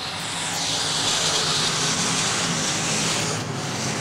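A pack of crate late model dirt-track race cars running around the oval, their crate V8 engines at speed as one loud mixed rumble and rush that swells about half a second in.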